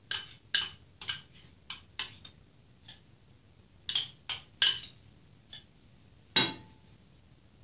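A metal spoon clinks and scrapes against a small glass bowl while mayonnaise is spooned out of it into an enamel basin, giving a string of sharp, irregular clinks. Near the end comes one louder knock with a short ring as the spoon strikes the enamel basin.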